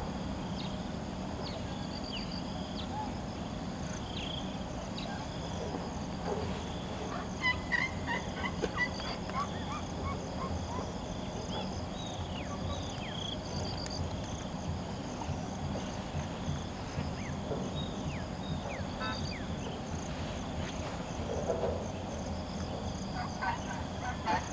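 Wild birds calling and chirping, with a run of rapid chattering notes about seven to nine seconds in and again near the end, over a steady high-pitched drone and a low background rumble.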